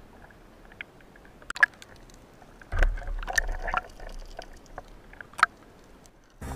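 Sea water sloshing and splashing as a freediver swims at the surface with his speargun and camera half in the water, broken by scattered sharp clicks and taps, one loud one about a second and a half in and another near the end.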